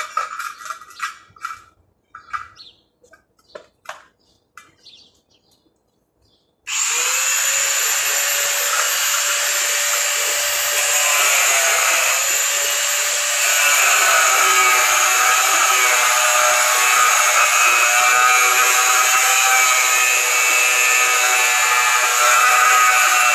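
Handheld angle grinder starting up about seven seconds in and running steadily on steel, a high whine whose pitch dips briefly twice as it bears on the metal. Before it, a few short clicks.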